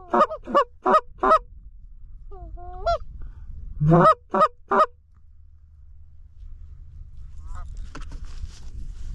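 Canada goose call blown in two quick runs of four loud clucks, one at the start and one about four seconds in. Fainter honks of distant Canada geese come between the runs and again near the end as the flock closes in.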